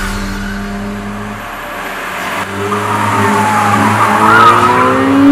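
Perodua Myvi hatchback engine accelerating hard, its pitch climbing steadily through the second half, with road and tyre noise underneath.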